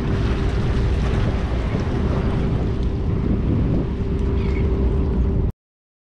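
Wind buffeting the microphone over a steady low mechanical hum, an engine or machinery running without change. The sound cuts off suddenly about five and a half seconds in.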